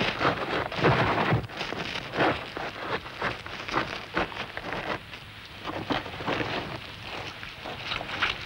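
Gritty crackling and scraping of a dung beetle rolling its dung ball over dry soil, as dubbed on a film soundtrack: irregular and crackly, loudest about a second in, then thinner and more scattered in the second half.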